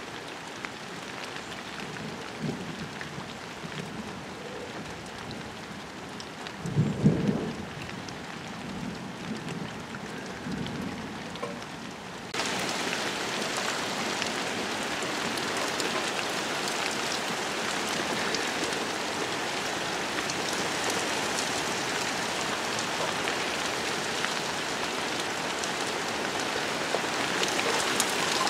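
Steady rain falling on a pond's water and lily pads, with a brief low rumble of distant thunder about seven seconds in. About twelve seconds in the rain abruptly becomes louder and sharper, heard closer to the water's surface.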